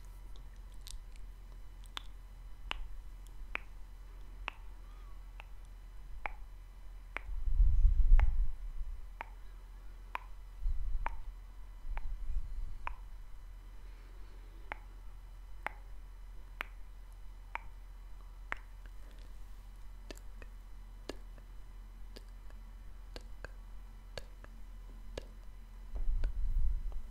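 Mouth clicks, sharp tongue clicks repeating at a steady pace of about one every three-quarters of a second. Low muffled rumbles on the microphone come a few times, about a third of the way in and again near the end.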